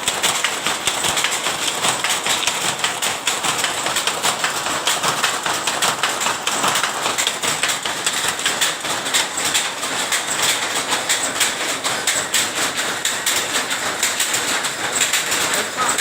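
Tapis cloth-making machine running: a fast, steady mechanical clatter of many rapid clicks.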